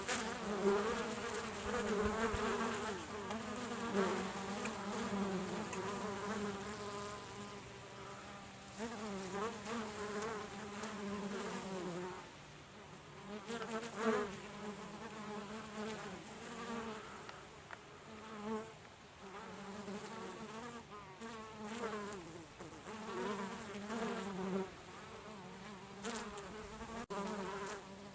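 Honeybees buzzing in flight close by, several wingbeat hums overlapping and wavering in pitch. The buzzing is dense in the first half and comes and goes after that.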